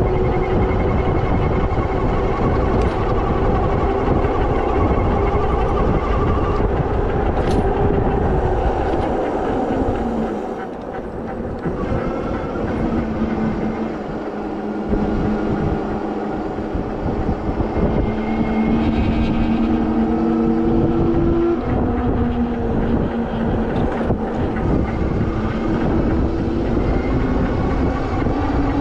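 Riding an electric bike at about 17 to 20 mph: heavy wind buffeting on the microphone over a steady whine from the electric drive and tyres. The whine drops in pitch over the first ten seconds or so, holds, and rises again near the end. The wind eases briefly about ten seconds in.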